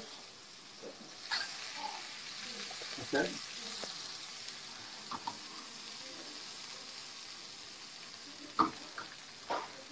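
Fish fillets searing in a hot, lightly smoking pan, sizzling steadily. A few short clicks and knocks sound through it.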